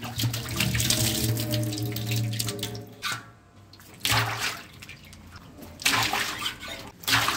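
Melted ghee, then cooking oil from plastic packets, pouring in streams into a large metal cooking pot and splashing into the fat already in it. The pouring breaks off about three seconds in and starts again a second later.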